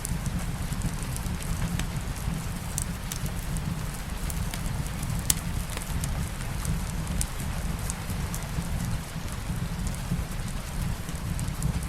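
Steady rain mixed with a crackling wood fire in a fireplace, with a low rumble underneath. Scattered sharp crackles and pops, one louder pop about five seconds in.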